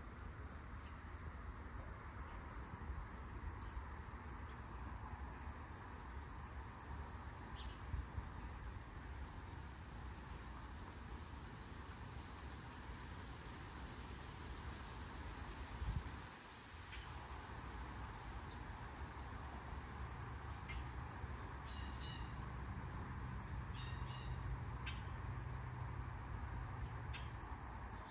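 Outdoor insect chorus: a steady, high-pitched drone of insects, typical of crickets, over a low rumble, with a single thump about halfway through and a few short chirps near the end.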